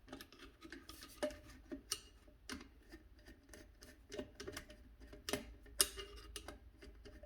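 Faint, irregular clicks and scrapes of a screwdriver working the two slotted screws on a Romex cable connector to loosen them.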